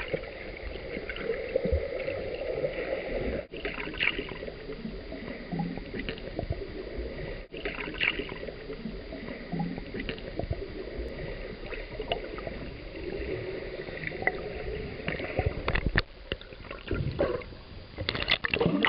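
Water sloshing and gurgling around a boat, a steady noisy wash that breaks off abruptly twice, with a few sharp knocks near the end.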